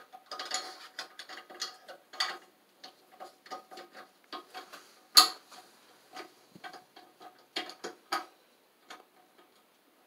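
Small irregular plastic clicks and taps from a replacement toilet flush lever being fitted through a ceramic toilet tank wall, with one sharper click about five seconds in.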